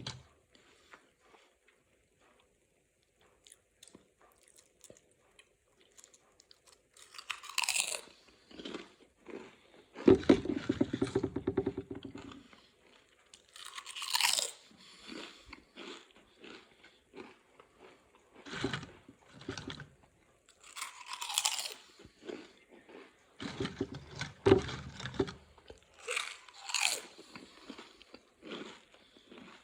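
Potato chips being bitten and chewed, crunching in bursts a few seconds apart, with the crinkle of the chip bag between bites. The loudest crunching comes about ten seconds in, and again near the end.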